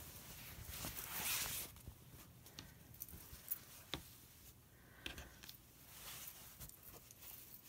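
Cotton fabric rustling as it is handled on a cutting mat, with a soft swell about a second in, then a few faint clicks and rustles.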